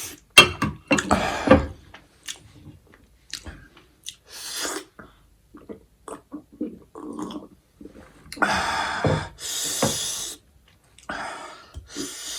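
Close-miked mouth sounds of eating spicy instant noodles: wet clicking chewing and slurping, with several long, loud breaths or sniffs in between.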